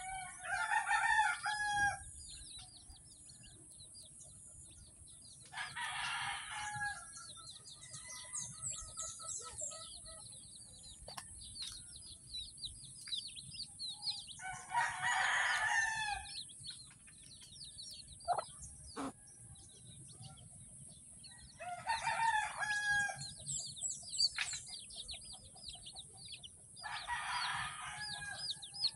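Rooster crowing five times, each crow about one and a half to two seconds long, with continuous high peeping of young chicks between and under the crows.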